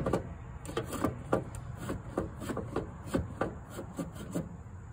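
Handling noise: a sharp click, then a string of light, irregular clicks and rubbing scrapes, about three a second, that stops shortly before the end.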